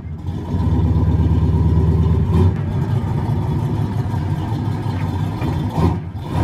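Car engine running with a low, steady, fast-pulsing rumble, a sound effect under a logo animation; it starts abruptly, with brief blips about two and a half seconds in and again near the end.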